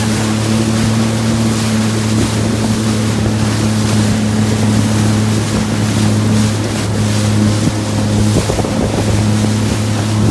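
Sea-Doo personal watercraft engine running at a steady pitch while under way, with wind buffeting the microphone and water rushing past the hull.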